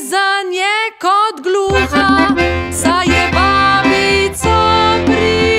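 Accordion music from a children's song: sliding, swooping notes for about the first second and a half, then steady held chords over a low bass.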